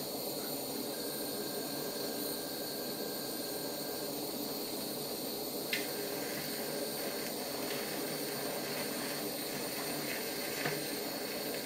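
Handheld butane blow lamp burning with a steady hiss as its flame heats a flux-coated wire joint to melt soft solder. A couple of faint clicks come in the second half.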